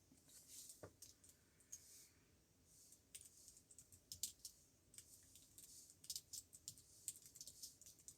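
Faint typing on a computer keyboard: a run of quick, irregular key clicks, thickest in the second half.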